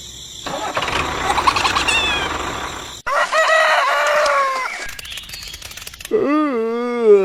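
Chickens calling, ending in a long rooster crow that holds its pitch and then drops away, with a sudden cut in the audio about three seconds in.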